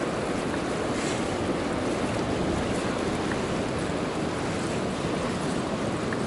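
Ocean surf breaking on the beach, a steady wash of noise, mixed with wind on the microphone.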